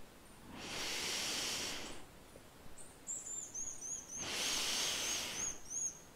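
Two long, hissing breaths of a large creature, each about a second and a half, the first about half a second in and the second near the middle. Small birds chirp faintly between them in a forest ambience.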